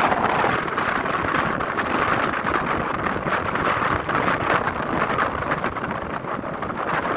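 Steady rushing noise of a thunderstorm, with no thunderclap in it.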